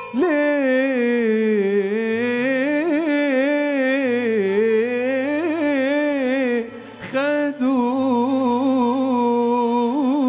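Male singer holding long wordless notes in Egyptian Arabic style, the pitch wavering and turning in ornaments, in two phrases with a short break about seven seconds in. A band's low accompaniment sits steadily underneath.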